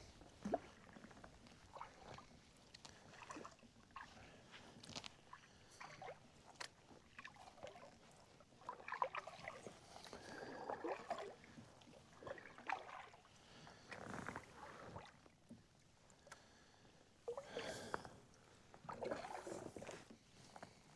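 Kayak being paddled through shallow creek water: irregular paddle strokes with soft splashes and drips, and a few light knocks on the hull.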